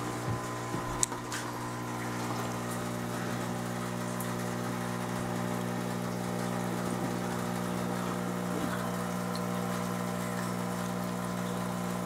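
Aquarium pump humming steadily, with a couple of light clicks about a second in.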